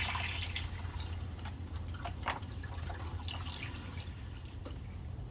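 Engine Ice coolant additive being poured into the radiator, a trickling, dripping liquid sound over a steady low hum.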